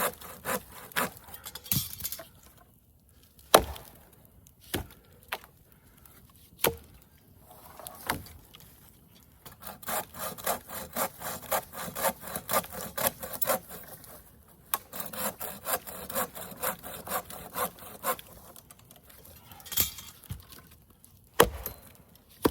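Wood being sawn by hand, in runs of quick back-and-forth strokes, with a few sharp knocks or snaps between the runs and a loud one near the end.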